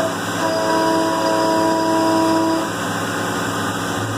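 CNC mill cutting steel with a three-flute carbide end mill under heavy engagement, coolant running, over a steady hum and hiss. A steady pitched ring from the cut comes in about half a second in and stops after about two seconds.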